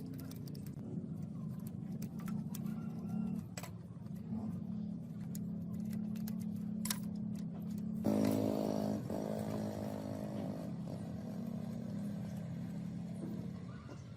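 A machine running with a steady low hum, with scattered sharp clicks and knocks; about eight seconds in the hum briefly gets louder and fuller.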